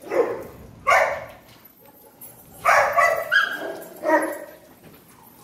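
Dogs barking, about six loud barks spread over a few seconds, two or three of them close together in the middle.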